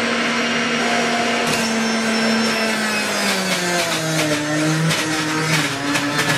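Breville Icon centrifugal juicer running. Its motor hum drops in pitch about three seconds in, as produce is pushed down the chute and ground, with a dense crunching crackle through the second half.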